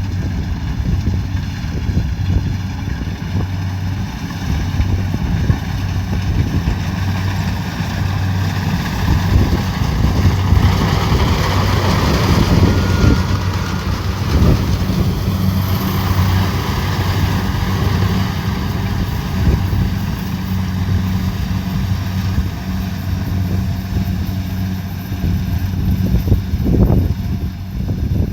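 Kubota DC70 Pro combine harvester running steadily: a continuous low diesel drone with rough mechanical noise, swelling a little about midway.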